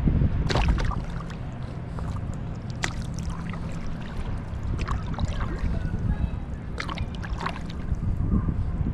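Water splashing from paddle strokes on a stand-up paddleboard, a short splash every couple of seconds, over a steady low rumble of wind on the microphone.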